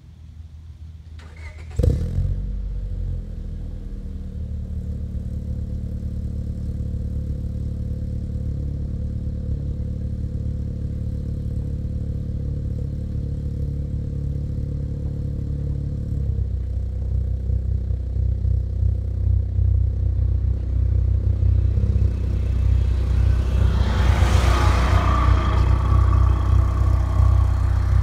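A 2004 Honda Civic EX's four-cylinder engine starts about two seconds in and settles into an idle. About two-thirds of the way through, its note drops lower and gets stronger, and it grows louder as the car reverses toward the curb.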